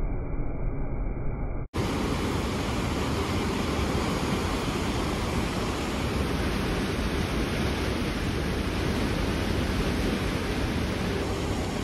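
Steady rushing of water at a dam. A cut about 1.7 s in turns a muffled stretch into a brighter, fuller rush.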